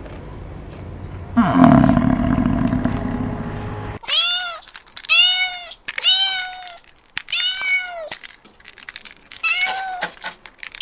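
A cow mooing, one long low call that falls in pitch. After a cut about four seconds in, a cat meowing again and again: six arched meows, each about half a second long.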